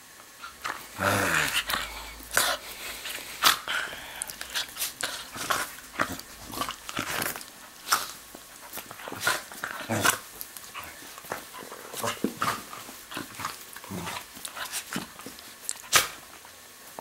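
Bedlington terrier play-growling and mouthing at a hand in rough play. It gives a longer growl about a second in, then many short, sharp snaps of its jaws and smaller growls.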